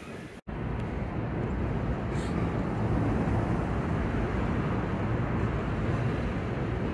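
Steady low rumble of a distant electric commuter train approaching on the line, with outdoor urban background noise.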